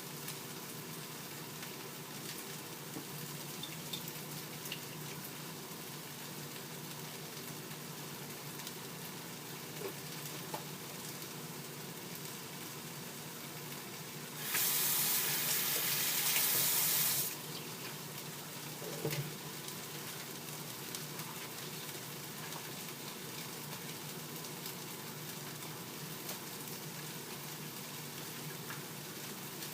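Food frying in a skillet, a steady low sizzle with a few light clicks. About halfway through, a kitchen water tap runs for about three seconds, the loudest sound.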